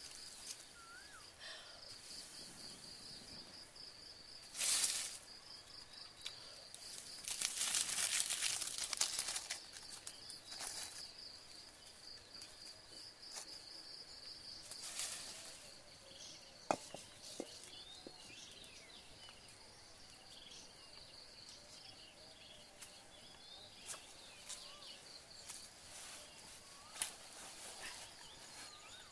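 Bursts of rustling and crackling from dry sticks and leaves being handled and fed into a small wood campfire, the longest lasting about two seconds near the first third, with a couple of sharp snaps later. Under it, insects keep up a steady pulsing trill, with a few brief bird chirps.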